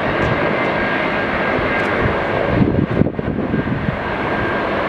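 A McDonnell Douglas MD-80's rear-mounted Pratt & Whitney JT8D turbofans running as the jet rolls along the runway: a steady jet rush with a thin high whine. About three seconds in, a few gusts of wind buffet the microphone and the sound briefly dips.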